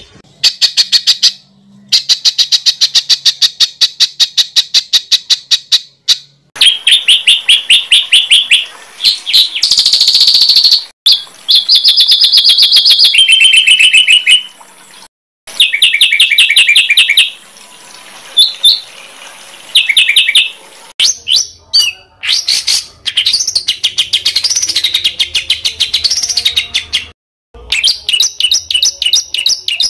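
Songbirds singing in an edited masteran compilation: fast runs of sharp repeated high notes, many a second, in blocks that switch pitch and pattern every few seconds and break off abruptly into short silences.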